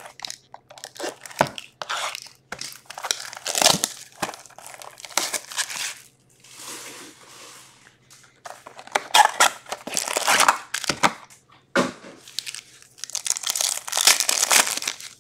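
A sealed hockey card box and its packs being torn open by hand: a run of irregular ripping and crinkling of the wrappers, some louder rips among softer rustling.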